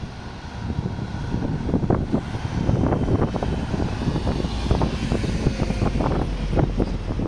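Strong gusting wind buffeting the microphone: a low rumble with irregular crackling gusts that grows louder about a second in.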